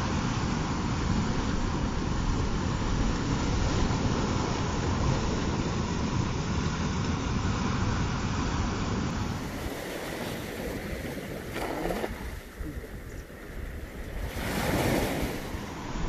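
Small waves breaking and washing up a sandy shoreline, with wind buffeting the microphone through the first half. In the quieter second half, two separate washes of water swell and fade near the end.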